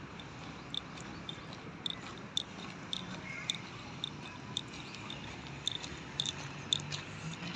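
Footsteps crunching on a gritty, leaf-strewn path at a walking pace, about two short crunches a second over a faint steady outdoor background.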